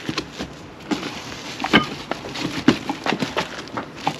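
Packaging being handled and opened to unpack a new brake disc: a string of irregular rustles, scrapes and short knocks.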